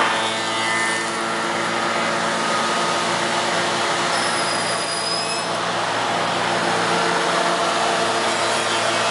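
Soukup Crafter timber-window machining centre running with a steady hum of its motors. A thin high whine comes in briefly about four seconds in.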